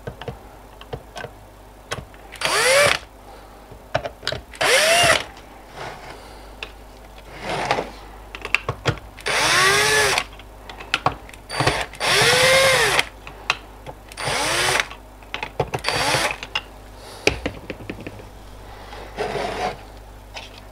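Cordless drill-driver running in several short bursts, each motor whine rising and falling in pitch, as it backs screws out of a plastic switch housing. Small clicks and knocks of the bit and parts come between the bursts.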